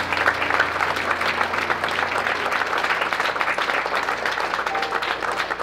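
An audience applauding: many people clapping together.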